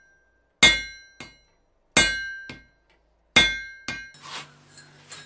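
Blacksmith's hammer striking hot iron on an anvil: three heavy, ringing blows about 1.3 seconds apart, each followed by a lighter tap. About four seconds in the sound changes to faint clinking over a low hum.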